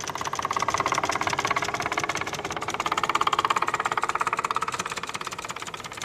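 Small piston engine of a replica Wright Flyer biplane running in flight overhead, a fast, rattly pulsing drone that grows louder toward the middle as the plane passes, then eases off.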